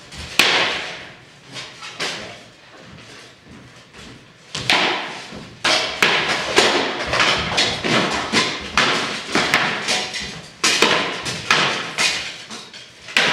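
Rattan swords striking shields and armour in armoured sparring: a few separate hits at first, then from about a third of the way in a quick run of blows, two or three a second, echoing in a large hall.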